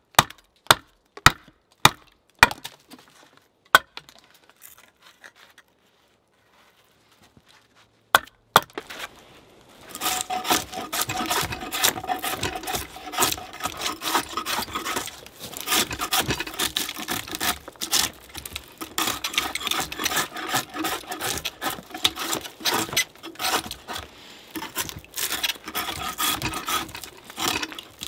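A few sharp knocks, then, from about a third of the way in, a drawknife peeling bark from a clamped log: repeated rough scraping strokes of steel shaving wood.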